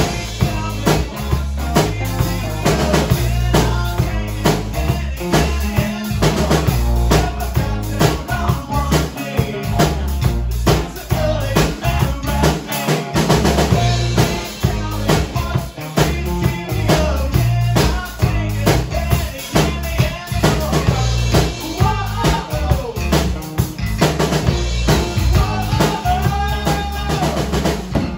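A rock band playing live on electric guitar, bass guitar and drum kit, with steady kick and snare drumming under the guitars, loud throughout.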